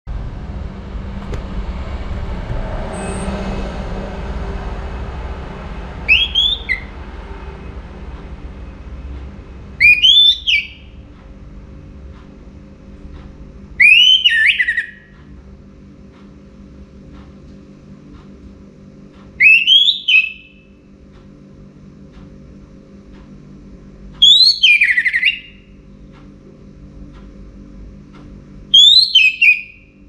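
Orange-headed thrush singing: six short, loud whistled phrases, each sweeping and falling in pitch, spaced about four to five seconds apart. A low rumbling background noise fades out after about six seconds.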